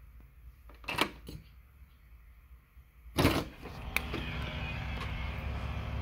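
A door's deadbolt thumb turn clicks as it is unlocked about a second in; about three seconds in the door is opened with a brief loud noise, and steady outdoor hum comes in after it.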